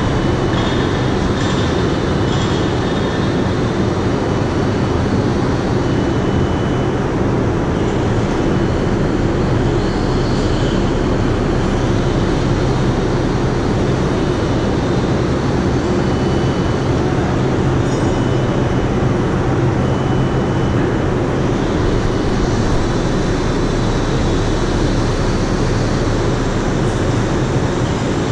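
Steady loud machinery drone: a constant low hum under an even rumble, with a few faint high tones coming and going.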